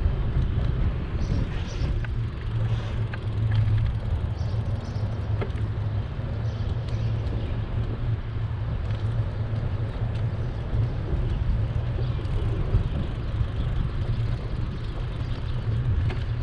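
City street ambience recorded while riding a bike: a continuous low rumble of traffic and wind on the microphone, with a few faint brief chirps above it.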